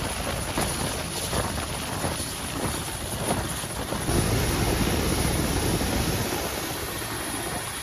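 Helicopter running nearby, its rotor and engine making a steady noise that grows louder about halfway through.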